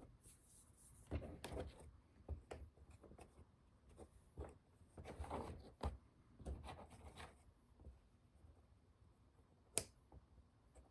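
Small model-kit parts being handled on a workbench: soft rustles, scrapes and light taps, with one sharp click near the end.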